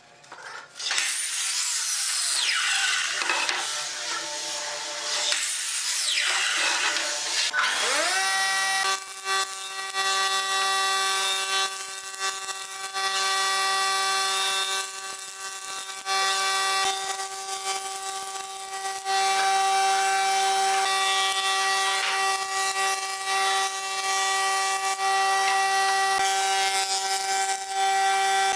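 Ryobi sliding miter saw whining up and down in pitch as it cuts boards. About eight seconds in, a jointer's motor comes up to speed and runs with a steady hum, its cutterhead grinding loudly in several passes as boards are planed across it.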